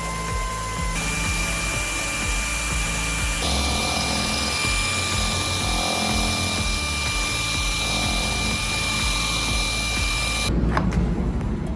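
An electric power tool running with a steady high whine, its pitch stepping up slightly about a second in. Near the end it stops and a few sharp clicks follow.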